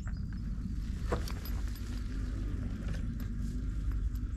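Himiway Cruiser fat-tyre e-bike being ridden under motor power: a steady low rumble from the ride, with a few short clicks and rattles, one about a second in.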